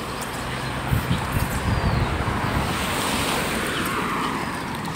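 A road vehicle passing by, its engine rumble and tyre noise swelling to a peak a couple of seconds in and then fading away.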